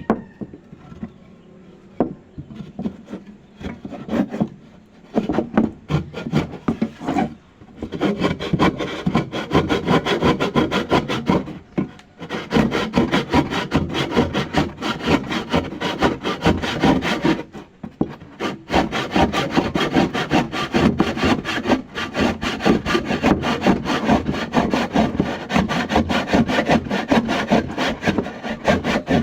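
Hand saw cutting in rapid back-and-forth strokes. The strokes start a couple of seconds in, with brief pauses about 12 and 18 seconds in.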